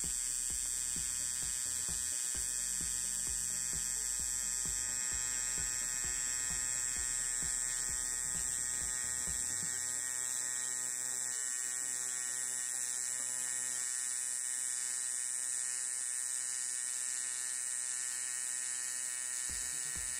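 AC TIG welding arc on aluminium from a compact NST AC/DC 250FD inverter welder: a steady, even buzz held without a break.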